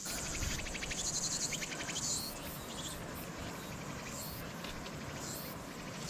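Insects singing: a fast, evenly pulsing high trill, with a few short high chirps over it later on.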